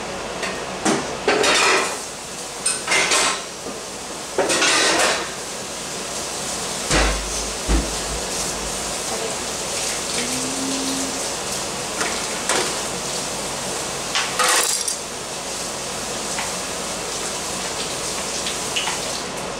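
Pots, pans and metal utensils clattering and clanking in a kitchen, in several short bursts separated by pauses.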